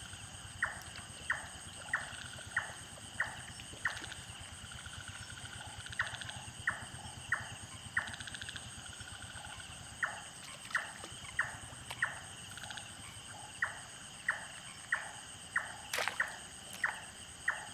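A night animal calling: short sharp calls repeated about every two-thirds of a second in runs of four to six, with brief pauses between runs, over a steady high-pitched insect hum. A single sharp knock near the end.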